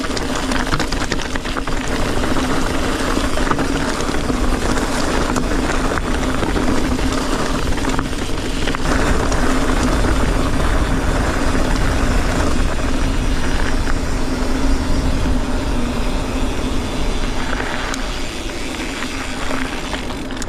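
Full-suspension mountain bike on Maxxis Forekaster 29x2.20 tyres descending a rough, rocky trail: constant rattling and clattering of tyres and bike over stones, mixed with wind on the helmet-camera mic. A steady hum runs underneath.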